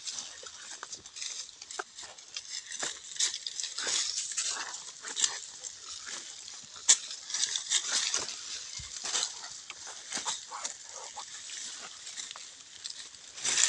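Footsteps crunching through dry fallen leaves and brushing past brittle twigs and dead vines: an irregular run of crackles and rustles, with one sharp snap about seven seconds in.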